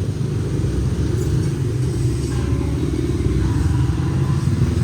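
Motor vehicle engine running, a steady low rumble that grows slightly louder toward the end.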